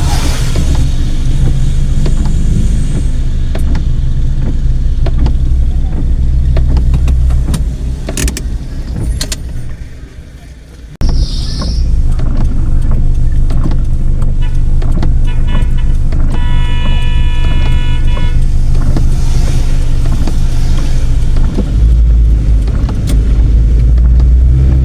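Car driving on the road: a steady low rumble of engine and road noise that fades briefly about eight seconds in and comes back suddenly near the eleven-second mark. About two-thirds of the way in a pitched tone sounds for about two seconds.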